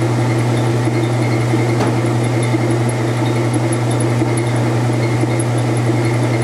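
1985 Kenmore 60 Series top-loading washer running with a loud, steady motor hum.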